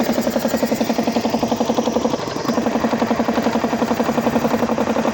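Air compressor pump running with a fast, even pulsing beat, dropping out briefly a little over two seconds in.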